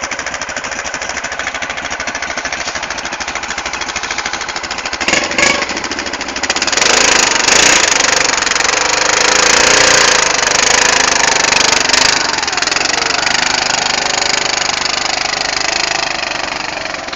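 ATV engine running in low gear, then revving hard from about six seconds in as it strains to pull itself out where it has dug itself in.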